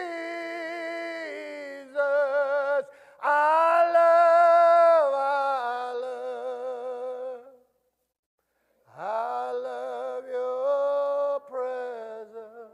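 A single voice singing a slow phrase unaccompanied, in long held notes with vibrato that step gradually lower, with a pause of about a second just past the middle.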